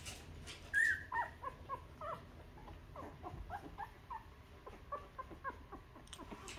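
Two-week-old puppies whimpering: a run of short high squeaks and falling whines, the loudest about a second in.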